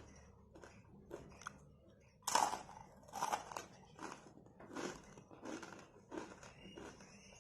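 Close-up crunching of murukku, a crisp fried rice-flour snack, being bitten and chewed. There is one loud crunching bite a little over two seconds in, then a steady run of crunchy chews about one and a half a second.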